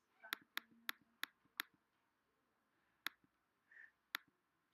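Faint computer mouse clicks: five in quick succession, then two more, single and spaced apart.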